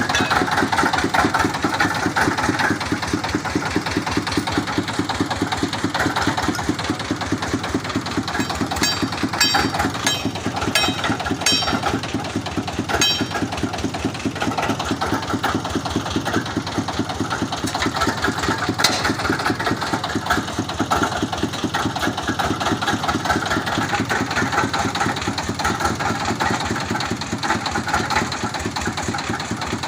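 Engine of a water-well boring rig running steadily with an even, rapid beat. About a third of the way in, a run of light metallic clinks sounds for a few seconds over it.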